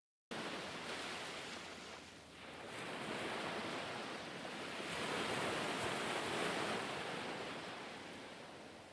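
Sea waves washing and receding: a rushing noise that cuts in suddenly at the start, then swells and ebbs, loudest around the middle.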